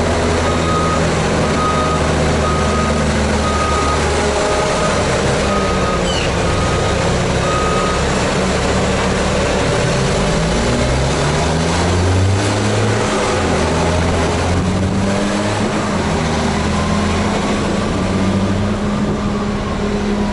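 Caterpillar 730 articulated dump truck running, its diesel engine note rising and falling as it works. Its reversing alarm beeps about once a second for the first eight seconds or so, then stops.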